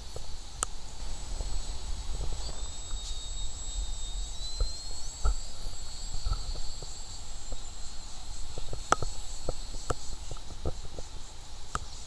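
Wind buffeting the microphone with a steady low rumble, under a faint thin high-pitched whine that rises in pitch about four seconds in, and scattered light clicks.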